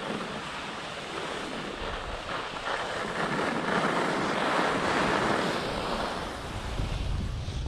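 Skis sliding and scraping over firm groomed snow, a hiss that swells through the middle of a turn. Wind buffets the microphone with a low rumble near the end.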